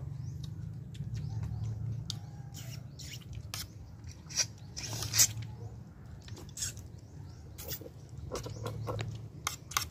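People eating horn snails: short sucking slurps and clicks, scattered unevenly, as the snails are sucked out of their shells, over a low steady rumble.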